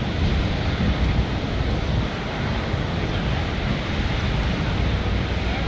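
Wind rumbling on the microphone over steady outdoor background noise.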